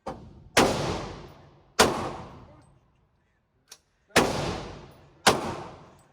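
Gunshots at a shooting range: a faint shot at the very start, then four loud shots in two pairs, each trailing off in a long echo.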